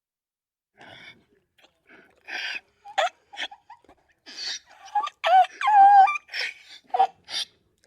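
Donkey braying: a run of wheezing in-breaths alternating with pitched honking out-breaths, building to its loudest, longest honk about five to six seconds in.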